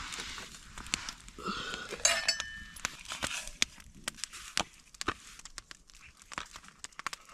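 Scattered clinks, clicks and knocks of cooking gear being handled, with a couple of short ringing metal clinks in the first two and a half seconds.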